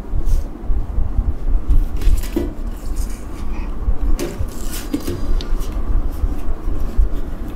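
Handling noise from a KYT RC-7 full-face motorcycle helmet being lifted, turned over and set down on a table: light knocks and clicks of its hard shell, rustling of its black plastic wrapping, and low thumps.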